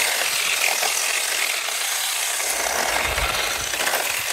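Radio-controlled four-wheel-drive drift car running over rough asphalt: its electric motor and tyres make a steady scraping noise.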